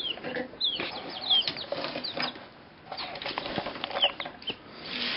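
Chicks peeping in short, high, falling chirps, with rustling and scratching in the hay bedding as they scramble for a live worm. The peeping drops away briefly about halfway through.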